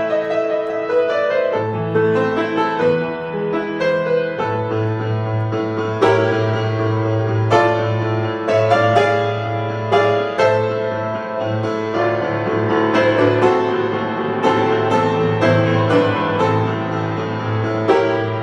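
Solo piano playing a piece: struck chords over a held bass line, with regular note attacks.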